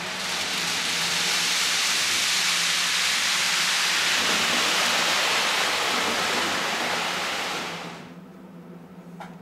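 Märklin ICE model train passing, its ESU sound decoder playing the rushing hiss of a high-speed train. The hiss swells in over the first second, holds steady, and fades away about eight seconds in.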